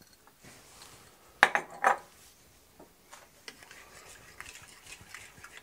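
A spoon clinks against a ceramic mixing bowl a few times about a second and a half in, then makes softer scraping and clicking sounds as it stirs spice into a thick yogurt marinade.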